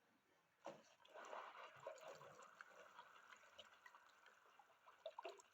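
Faint liquid sloshing of a wet plaster-and-water mix being stirred, starting about a second in.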